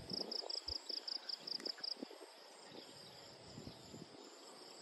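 Cricket chirping, a run of high-pitched chirps at about five or six a second that stops about two seconds in, with faint scattered crackles underneath.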